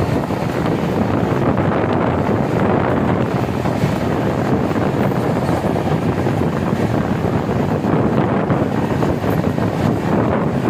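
Wind buffeting the microphone at the open door of a moving Indian Railways passenger coach, over the train's steady running noise on the track.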